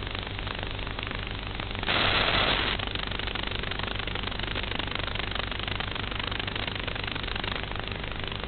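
Onboard audio of an FPV model aircraft in flight: a steady motor and propeller drone with a low hum under a haze of hiss. About two seconds in, a louder burst of hiss lasts under a second before the steady drone returns.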